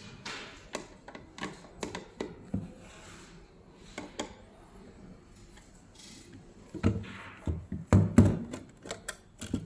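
Screwdriver working the screws in the plastic base of a thermal receipt printer, with small clicks and scrapes. In the last few seconds the printer is turned over and handled, with several louder knocks and thumps.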